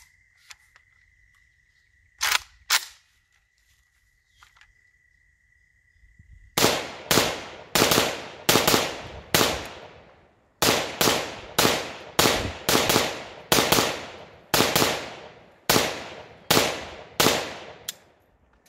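AK-47 rifle in 7.62x39 firing a string of about twenty semi-automatic shots at an even pace of two to three a second, with a short pause partway through. A couple of sharp clacks come a few seconds before the first shot.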